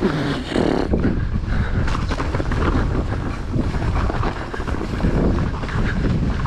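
Mountain bike rolling fast down a snow-covered dirt trail: a steady rumble of wind on the microphone and tyres on the ground, with short rattles and knocks from the bike over bumps.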